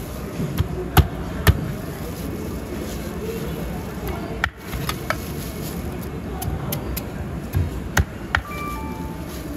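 Cleaver chopping fish into steaks on a wooden cutting board: a few sharp chops, the two loudest about a second and a second and a half in and another near the end, over a steady market din with music in the background.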